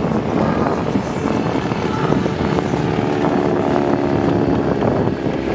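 Radial-engined biplane flying past, its engine and propeller a steady drone, with the engine's tone coming through more clearly in the second half.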